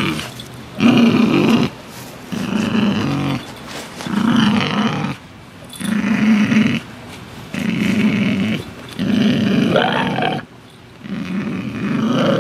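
Bull terrier growling in a run of about seven growls, each about a second long with short breaks between. It is the growl of a dog that resents being handled and touched.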